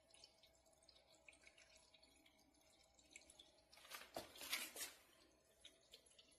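Faint water dripping and trickling in a stainless-steel cat water fountain, with small scattered drips and a louder splash about four seconds in.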